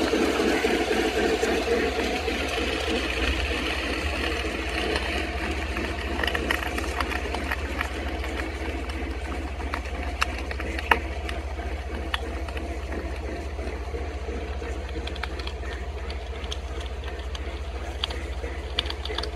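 Model train running along shelf-mounted track: a steady mechanical whir and rattle of the wheels and motor that is loudest at first and eases off over the first few seconds as the train moves away, with a few sharp clicks.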